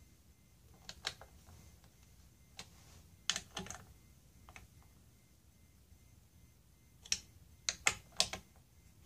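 Light metallic clicks and taps from a small hand screwdriver and T10 Torx screws being turned into the aluminium throttle body, coming in three brief clusters: once about a second in, a few around three and a half seconds, and a quick run near the end.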